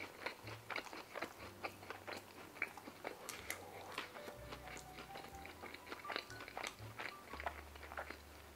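Close-miked chewing of a mouthful of food: a steady stream of small wet mouth clicks and smacks, with the odd faint crunch.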